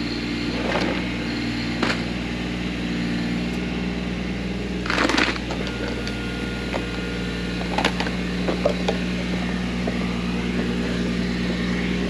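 A machine's engine running steadily at an even speed, with scattered knocks and a louder clatter about five seconds in.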